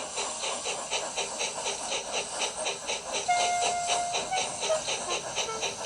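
Steam locomotive chuffing: a rhythmic hissing puff about five times a second. A few held tones at different pitches join about three seconds in.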